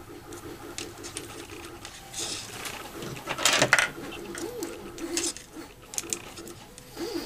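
Small handling noises of an M5 bolt being pushed through a plastic endstop microswitch and its wooden spacer by hand: scattered light clicks and rubs, the loudest about three and a half seconds in.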